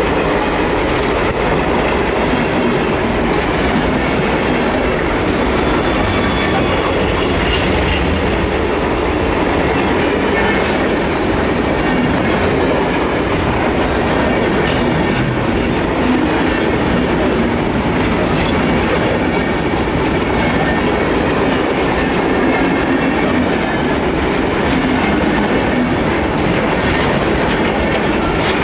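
Freight train hopper wagons rolling past right beside the microphone, steel wheels clattering steadily over the rail joints, with a brief faint wheel squeal about five seconds in.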